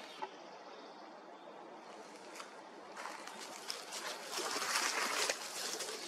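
Dry crackling and rustling, as of twigs and forest litter, with a single click near the start; the crackling grows louder and busier from about three seconds in.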